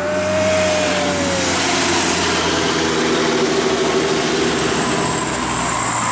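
A tour bus's diesel engine running loud and close, with a whine that sags in pitch over the first second and a half.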